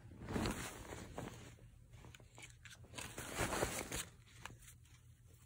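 An Australian Terrier puppy chewing a paper banknote, the bill crinkling and rustling in soft, irregular bursts.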